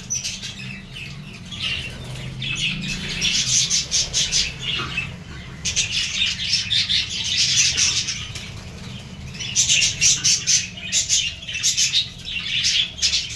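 A flock of budgerigars chattering with rapid, overlapping chirps, in waves that swell and ease, with wings flapping among them. A steady low hum runs underneath.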